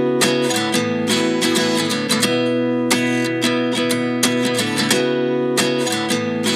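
Background music: an acoustic guitar strumming a steady rhythmic chord pattern, with no singing.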